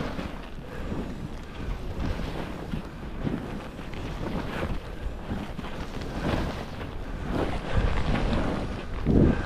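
Wind rushing over the microphone while skiing downhill, with the hiss of skis through powder snow. The sound swells and fades unevenly and is loudest near the end.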